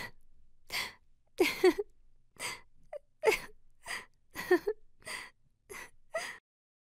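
A woman sobbing: a string of short, gasping sobs about every half second, which stop suddenly about six seconds in.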